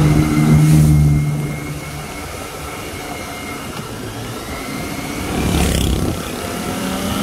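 Kawasaki Ninja ZX-25R's 250 cc inline-four engine running under way at low speed, heard from the rider's seat. It is louder for the first two seconds, then eases off, with a brief rush of noise about five and a half seconds in.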